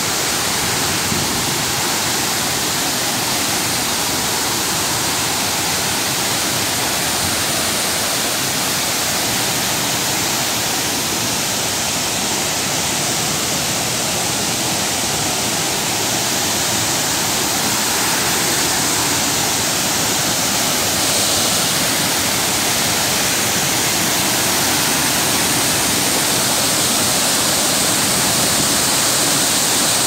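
Large tiered waterfall pouring into a pool: a steady, loud rush of falling water that grows a little louder past the middle.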